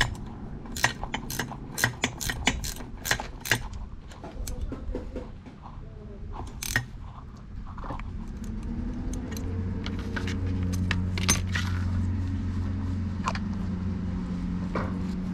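Sharp metallic clicks and clinks, about three a second for the first few seconds, as a wrench snugs up the top nut of an air spring. Then scattered clinks, and from about eight seconds in a steady low machine hum sets in and grows slightly louder.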